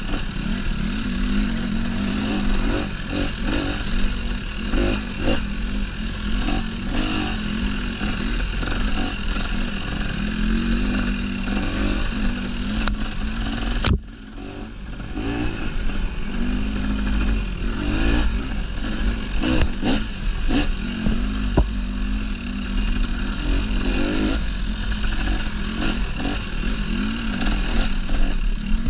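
Dirt bike engine running with the throttle opening and closing as it is ridden along a trail, with knocks and rattles from the bike over rough ground. About halfway through there is a sharp click, and the engine sound drops away briefly before picking up again.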